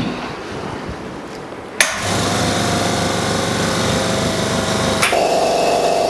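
A small electric pump motor switched on with a sharp click about two seconds in, then running with a steady hum; a second click about five seconds in brings a stronger, higher tone into its sound.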